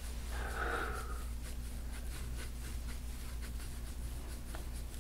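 Faint scraping and rubbing of a gua sha tool drawn over oiled skin, with soft ticks, over a steady low hum.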